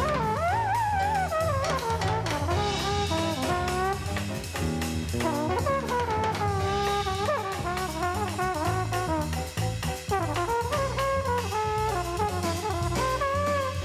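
Jazz: a horn plays a winding melody over a bass line that steps from note to note, with a drum kit keeping time.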